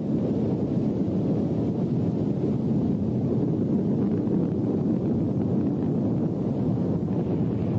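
Steady low rumble of an approaching tsunami wave, a deep, dense noise that holds at an even level.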